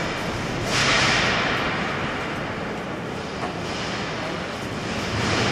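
Indistinct murmur of many visitors' voices echoing in a large stone cathedral interior, a steady wash of sound that swells about a second in and again near the end.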